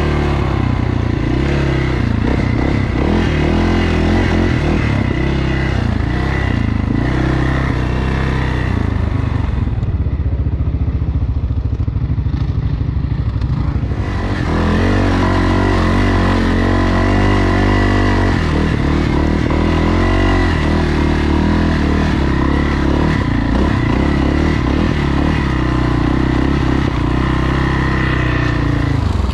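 ATV engine running while riding a trail, its pitch rising and falling with the throttle, with clattering from the machine over rough ground. About ten seconds in the engine eases off for a few seconds, then revs back up.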